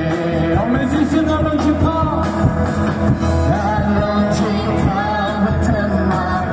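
Live band playing a gospel song through PA loudspeakers: a group of singers over a drum kit and guitars, with a steady beat.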